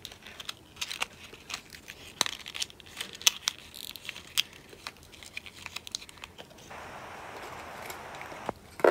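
A present's wrapping being crinkled and torn open by hand: many small crackles and rustles, then a steady tearing hiss for about two seconds near the end.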